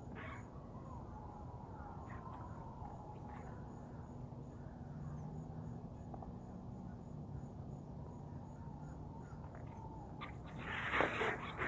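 Faint, steady outdoor background noise. About ten and a half seconds in, a quick run of louder scraping sounds starts.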